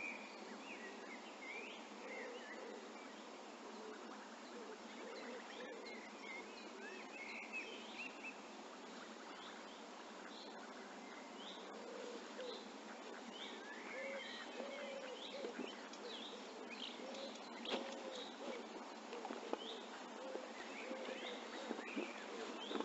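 Small birds chirping and calling again and again over a steady outdoor hiss, with a few sharp clicks in the later part.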